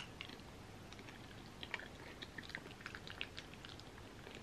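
A person chewing a mouthful of soft macaroni and cheese: faint, scattered clicking mouth sounds.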